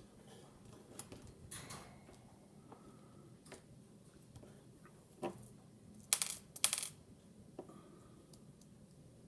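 Small metal clicks, clinks and scrapes of a Kershaw Dividend pocket knife being taken apart by hand, with the loudest cluster of sharp clinks about six seconds in.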